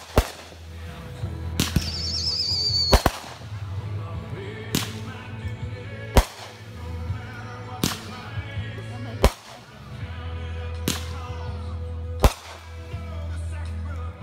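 Consumer aerial fireworks going off: a string of sharp bangs about every one and a half seconds, about ten in all, as shots launch and burst overhead.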